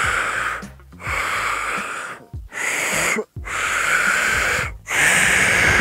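A failed two-finger whistle: five hard blows of rushing air past fingers held in the mouth, breathy with no clean whistle tone.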